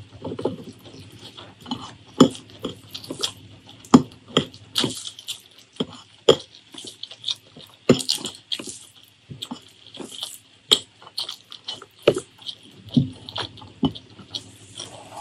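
Close-miked eating by hand: wet chewing and lip smacks, with fingers mixing and scooping curry-soaked rice on a plate. An irregular scatter of short, sharp clicks throughout.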